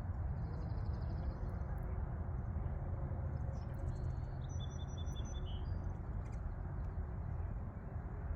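Small birds chirping faintly in a few short series of quick high notes, over a steady low rumble of background noise.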